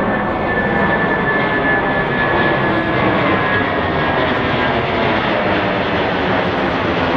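Jet airliner engines running loud and steady, with a thin high whine that drifts slightly lower and fades in the first few seconds.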